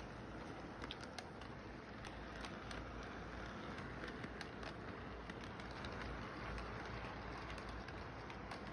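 Electric toy train running along its track, a steady rumble with many small scattered clicks.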